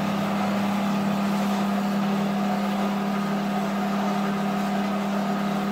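Horizontal metal-cutting band saw running steadily, its motor giving a constant hum under an even hiss, as the blade chops off the bar stock.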